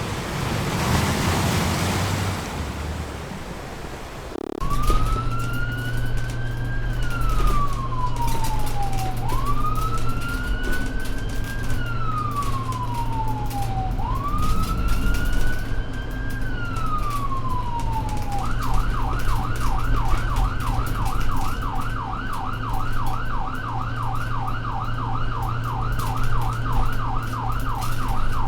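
After a few seconds of rushing noise, an emergency-vehicle siren starts about four and a half seconds in: three slow wails rising and falling, then a switch to a fast yelp at about three cycles a second, over a steady low engine hum.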